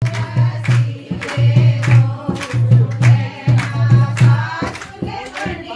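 Indian song with women singing over a steady, loud drum beat.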